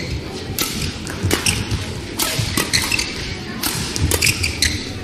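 Badminton rally: a quick, uneven run of sharp racket strikes on the shuttlecock, roughly one every half second, over steady noise in a large hall.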